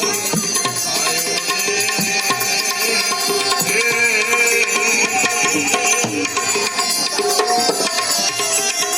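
Indian devotional music: a wavering melody line over hand drums, with drum strokes roughly every two seconds.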